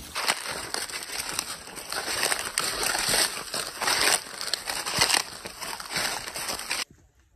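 Footsteps crunching through a thick layer of dry fallen leaves, a dense run of crisp crunches that stops abruptly near the end.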